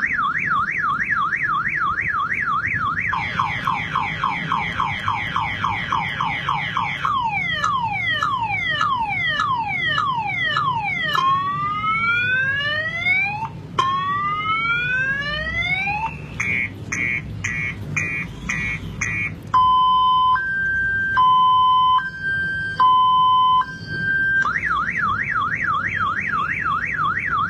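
Multi-tone electronic car alarm cycling through its sounds. It opens with a fast warble, shifts to a slower warble, then falling sweeps and rising whoops, a run of rapid beeps, and a slow high-low two-tone, before the fast warble starts again near the end.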